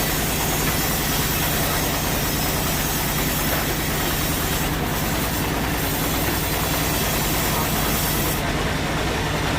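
Sawmill machinery running steadily: a constant mechanical hum with a hiss over it. The high part of the hiss drops away near the end.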